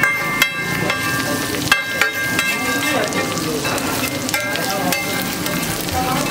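Egg frying in oil on a hot flat iron griddle, sizzling steadily, while a metal spatula scrapes across the griddle. About half a second in, and twice more near the two-second mark, the spatula clanks sharply on the iron and rings briefly.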